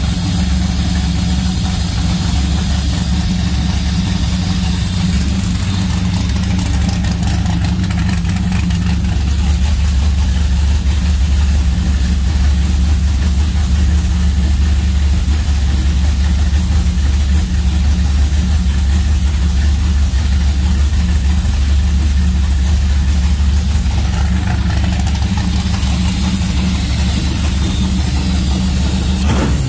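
Small-block Chevy 350 V8 idling steadily on a cold start, the idle getting a little louder about nine seconds in. The owner says it still needs cold-start fuel adjustment.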